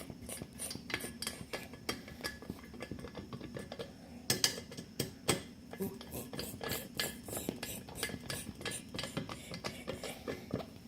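Small hard objects clicking and clinking as they are handled, in quick irregular taps, busiest from about four seconds in.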